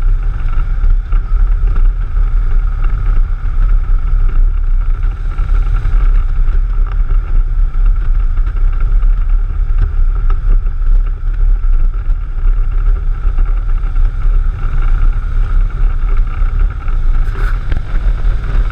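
Touring motorcycle cruising at highway speed: a steady low engine drone mixed with wind rush on the bike-mounted microphone. There is a brief tap about a second before the end.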